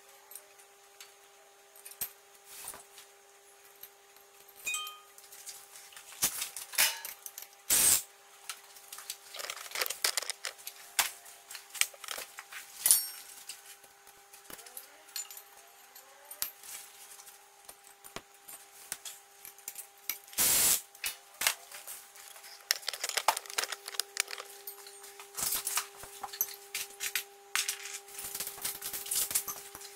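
Metal parts and hardware of a Smith machine and cable gym clinking, rattling and knocking as they are handled and fitted together, over a steady faint hum. The hardest knocks come about 8 seconds in and again about 20 seconds in, and the clatter grows denser near the end.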